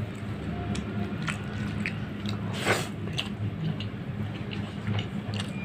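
Close-miked mukbang eating sounds: wet clicks and squishes as fingers mash rice into fish curry gravy, with chewing and mouth smacks and one louder wet smack a little past halfway. A steady low hum runs underneath.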